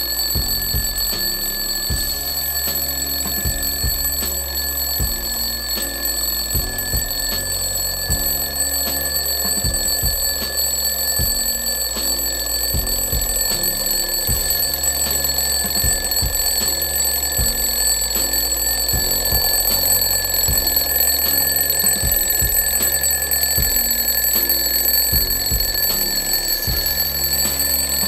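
Restored red twin-bell mechanical alarm clock going off, its bells ringing loudly and without a break.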